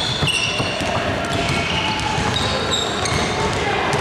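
Basketball play on a gym court: the ball bouncing, and sneakers squeaking several times in short high chirps on the floor.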